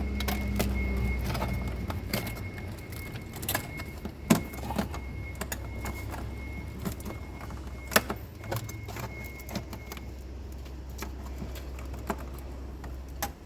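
Scattered clicks and taps of hands working a refrigerator drain heater's plastic wire connector loose, two of them louder about four and eight seconds in. A low hum fades out about two seconds in, and a faint steady high tone stops about ten seconds in.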